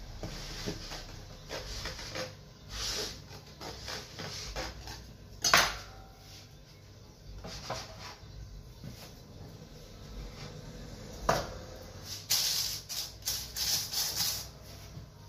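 A table knife scraping and clicking against a metal cake pan base as a chocolate sponge layer is freed from it, with two sharp metal clanks, one about five seconds in and one about eleven. Near the end, paper rustles as it is pressed into a springform pan.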